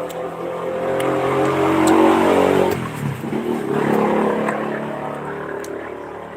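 Motor vehicle engines passing close by. One grows louder and its pitch drops sharply as it goes past about three seconds in, then a second swells and fades away.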